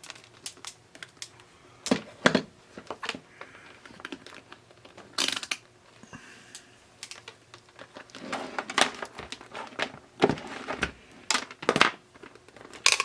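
Irregular clicks, taps and knocks of small parts being handled and fitted, with a few louder knocks spread through.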